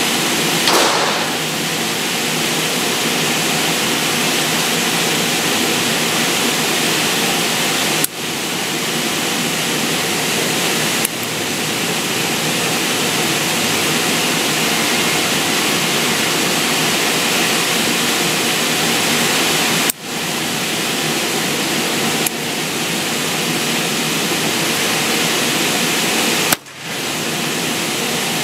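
Steady rushing air noise of an indoor shooting range's ventilation, broken by several sharp gunshot cracks, the loudest near the end.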